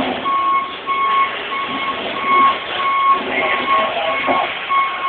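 A reversing alarm beeping steadily, a single pitch at about two beeps a second, with faint working sounds underneath.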